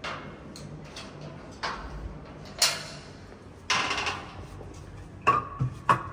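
A door being unlocked and opened: a series of latch clicks and short scraping sounds from a white aluminium door frame. It ends in two sharp metallic clicks, half a second apart, each with a brief ring.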